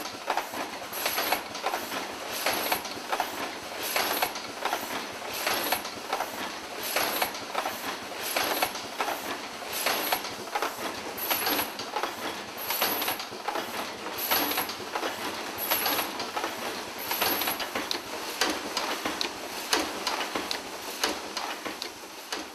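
Craft Inc Automatic Easel Hinge Machine running: a mechanical clatter of clicks and knocks that repeats in a steady cycle about every second and a half, each cycle marked by a short high-pitched sound.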